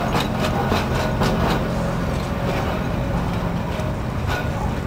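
A Blackpool electric tram running, with a steady low hum and a quick series of sharp clicks over the first second and a half, then one more click near the end.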